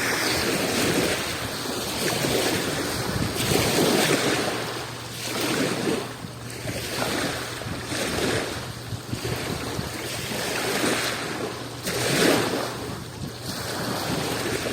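Adriatic Sea waves washing onto the shore, surging and falling back every couple of seconds.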